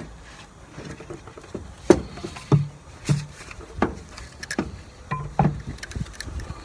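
Irregular metallic clicks and light knocks of a nut and socket being handled and fitted onto a starter's mounting stud.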